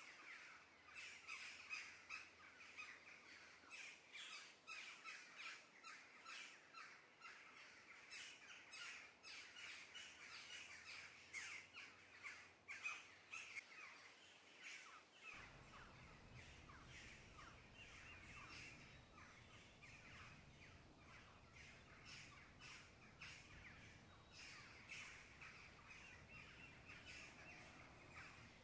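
Faint, quick scraping and wet stirring of a wooden spoon working fusilli through a simmering tomato sauce in a pot, a few strokes a second, thinning out about halfway through.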